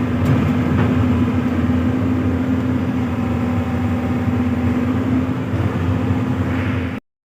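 Hyundai 215 excavator's diesel engine running steadily with a constant drone, then cutting off abruptly near the end.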